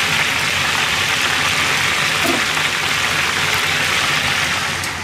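Chicken karaage deep-frying in a wide pan of oil: a steady, loud sizzle of dense bubbling. The pieces are still cooking, and the cook judges doneness by how this frying sound changes.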